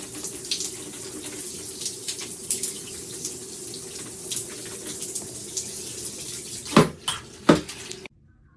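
Shower head spraying water: a steady rush of water with a low hum. Near the end come two loud knocks, and then the sound cuts off suddenly.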